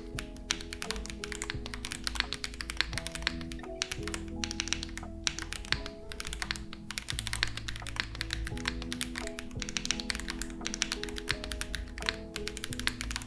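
Typing on a Space80 Apollo mechanical keyboard with Nezuko switches and GMK keycaps on a polycarbonate plate: fast runs of keystroke clicks in bursts with short pauses. Background music plays along.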